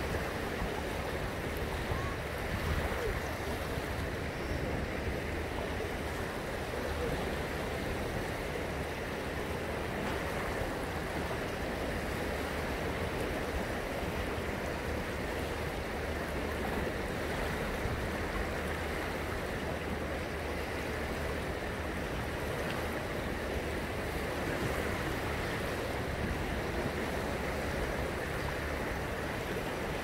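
Choppy sea water lapping and splashing close by, a steady wash of small waves.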